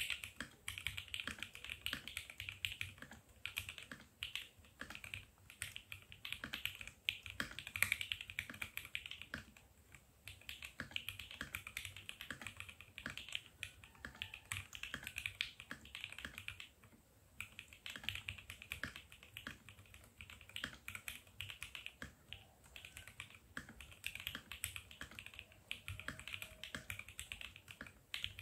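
Typing test on a custom keyboard with an acrylic case imitating the Rama Thermal, a DZ60 rev 2 PCB, a flexible acrylic plate, and stock, unlubed Jwick Black linear switches with Cherry clip-in stabilizers. Fast, steady keystrokes come in runs of a few seconds, with short pauses between them.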